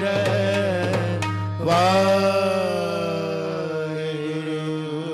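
Sikh kirtan coming to its close: harmonium and tabla accompany the ragi's singing. The tabla strokes stop about a second and a half in, then a last long sung note slides downward over the harmonium drone and fades away.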